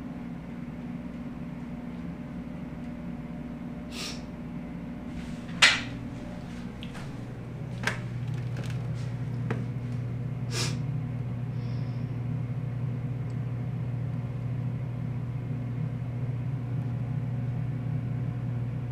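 Indoor room tone: a steady low hum with a few sharp clicks and taps scattered through it, the loudest about six seconds in. The hum drops lower and grows a little louder about seven seconds in.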